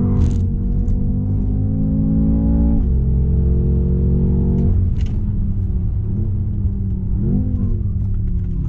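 BMW M5 Competition's twin-turbo V8 heard from inside the cabin under hard track driving: the engine note climbs steadily for nearly three seconds, then drops sharply. It holds lower, changes again about five seconds in, and gives two short rises and falls in revs around six and seven seconds.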